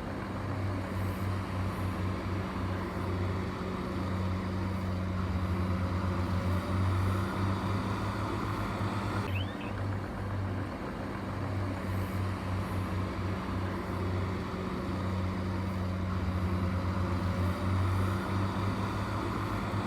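Heavy construction machine's engine running steadily with a low, even drone.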